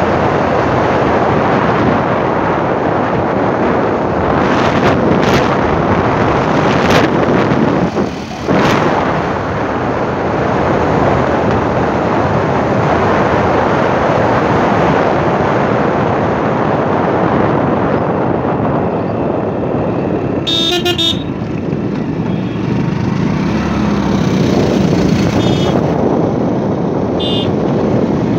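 Steady rush of wind and road noise from riding a motorcycle on an open road. A vehicle horn honks briefly about twenty seconds in.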